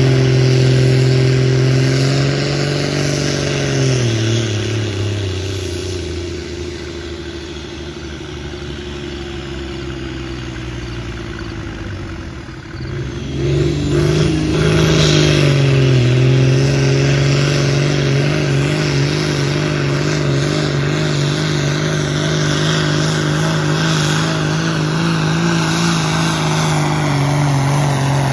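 Pulling tractor's diesel engine revving high, then dropping to a low idle about four seconds in. Around thirteen seconds in it revs back up and holds high, steady revs as the tractor pulls the weight-transfer sled down the track.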